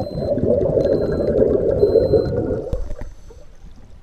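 Scuba exhaust bubbles rushing and gurgling past the camera underwater, dropping away about three quarters of the way through. A faint high beep repeats about once a second.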